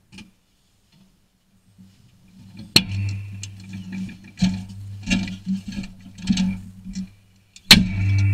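Tractor cab door unlatched with a sharp click about three seconds in, then scattered knocks and rustling as the operator climbs out of the cab, over a low steady hum. A second sharp bang near the end as the cab door is shut.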